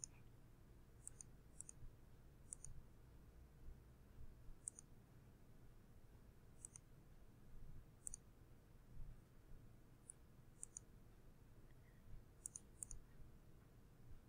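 Faint computer mouse button clicks, about ten, spaced irregularly, some in quick pairs, over a quiet room hum.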